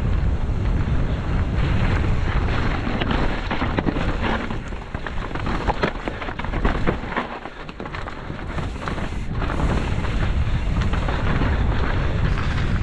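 Wind rumbling over a mountain-bike camera's microphone on a fast descent, with tyres crunching over dirt and gravel. Through the middle there is a rattle of knocks and clicks as the bike clatters over rocks, and the wind eases briefly about seven seconds in.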